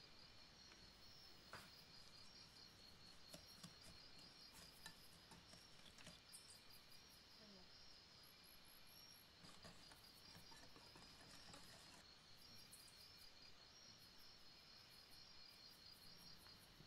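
Near silence: faint room tone with a steady, high-pitched pulsing trill and a few faint ticks.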